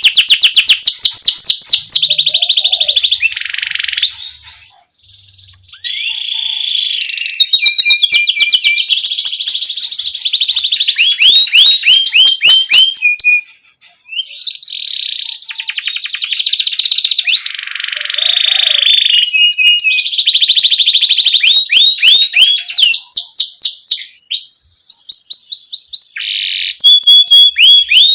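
Domestic canary singing loud, fast rolling trills and repeated chirping notes in long phrases, with short breaks between phrases.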